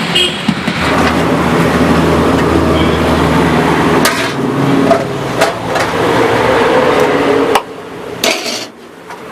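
Road traffic: a motor vehicle's engine running close by, with a few short knocks, cutting off abruptly near the end.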